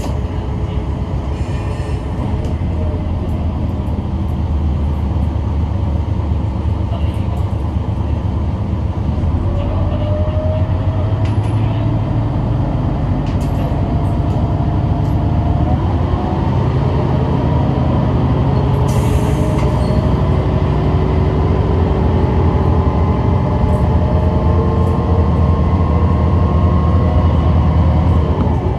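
Kishu Railway diesel railcar running along the line, heard from inside the car: a steady low engine hum with a whine that slowly shifts in pitch, growing a little louder toward the end.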